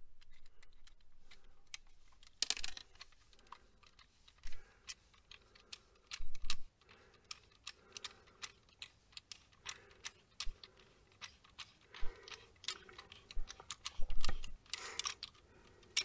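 Irregular small clicks and taps of a wall light switch and its wires being handled as the switch is disconnected, with a few louder rattles among them.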